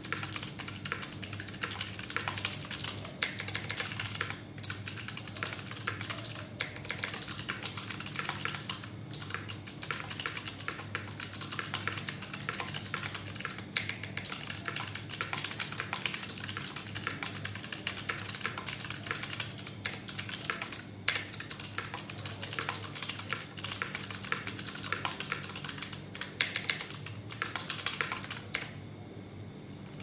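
Fast continuous typing on an iKBC MF87 mechanical keyboard with clicky Kailh BOX White switches, a stainless steel plate in a sandwich mount, no foam, and GMK keycaps. It makes a dense, uneven stream of key clicks that stops about a second before the end.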